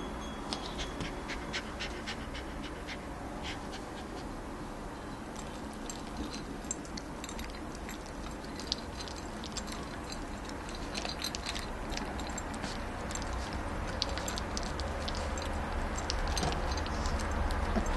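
Bichon Frise puppy eating dry kibble from a ceramic bowl: scattered small crunches and clicks of kibble against the dish, over a steady low hum.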